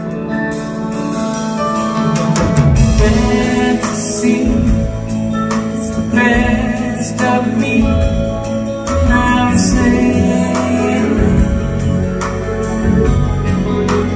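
A live soft-rock band plays an instrumental passage: electric guitar over sustained keyboard chords, with a drum kit coming in about two seconds in and keeping time.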